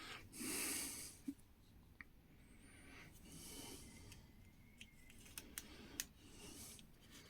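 Faint breathing close to the microphone, about three breaths a few seconds apart, with a few small clicks and taps.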